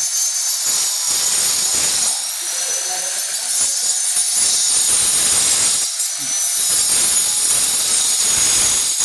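Angle grinder cutting glass: a steady high whine over a gritty hiss, easing briefly about two seconds and about six seconds in.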